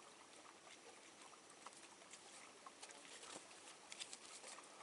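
Near silence: a faint hiss with scattered small ticks and clicks.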